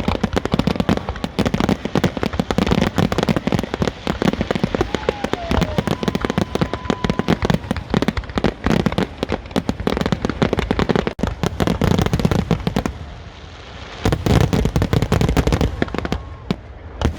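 Aerial fireworks barrage: a rapid, dense run of bangs and crackles, easing into a brief lull about thirteen seconds in before another burst of bangs.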